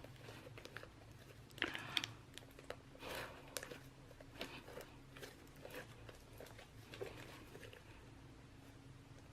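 Slime being squished and pressed by hand, with faint irregular small clicks and crackles, the loudest cluster about two seconds in.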